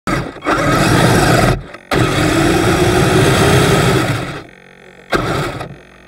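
Kyosho Blizzard RC snowcat's electric drive motors and metal tracks running in three loud spurts, the longest about two and a half seconds, with a faint motor whine in the middle one. Between spurts and near the end only a faint steady hum is left.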